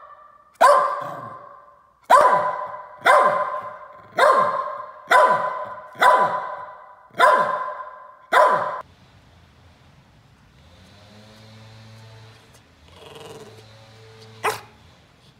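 Small Yorkshire terrier-type dog barking repeatedly: eight sharp barks at about one a second, then quieter, with one more sharp sound near the end.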